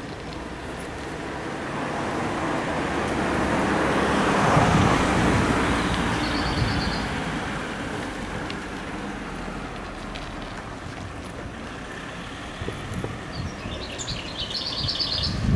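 A car drives past on the street, its tyre and engine noise swelling to a peak about four to five seconds in and then fading away. Small birds chirp briefly a couple of times, with wind buffeting the microphone near the end.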